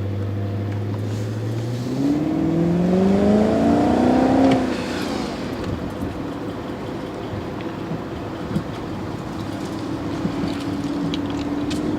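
BMW V8 with a hole in its exhaust, accelerating: the engine note rises steadily for about two and a half seconds, then the driver lifts off and it settles into a lower, steady cruise. The hole makes the normally quiet factory exhaust louder.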